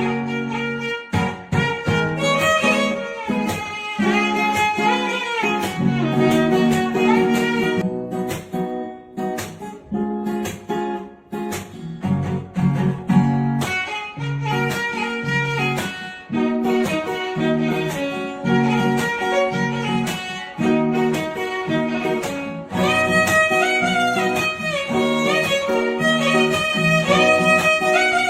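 Background music of guitar and violin playing a melody over a steady plucked rhythm, fuller from about two thirds of the way in.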